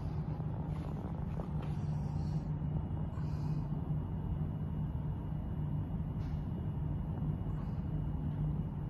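Steady low hum, like a machine or ventilation running, with a few faint brief hisses.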